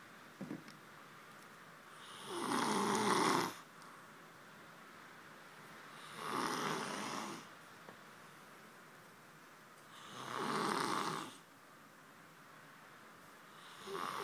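A sleeping man snoring: three long snores about four seconds apart, with a fourth starting near the end. A brief tick sounds about half a second in.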